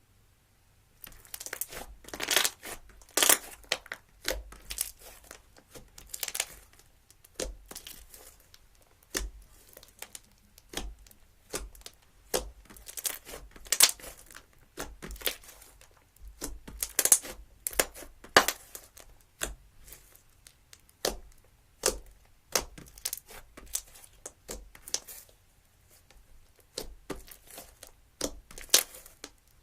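Slime being squeezed and pressed by hand, giving irregular sharp pops and crackles with short pauses between them.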